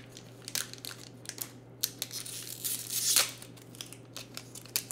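Pokémon booster pack's foil wrapper being torn open by hand: a run of crackles and crinkles, with a longer, louder rip about two to three seconds in.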